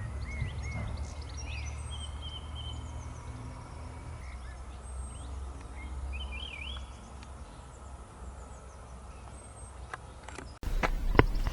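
Wild songbirds singing and calling, with many short chirps and warbles over a low, steady rumble. About ten and a half seconds in, the sound cuts abruptly to a louder stretch with a few sharp clicks.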